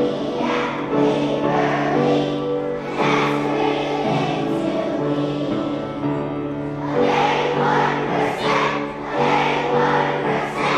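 Background music: a choir singing sustained, melodic notes over an accompaniment.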